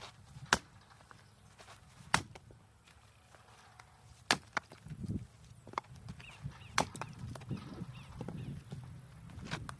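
Firewood being chopped: about seven sharp wooden cracks at irregular intervals of one to two seconds.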